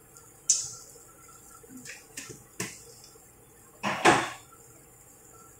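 A plastic jar of rock sugar and its screw lid being handled: a few light clicks, then a louder knock about four seconds in as the jar is put back on the spice rack.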